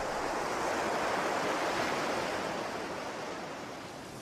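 Sea surf washing onto a sandy beach: a steady rush of breaking waves that slowly fades down in the second half.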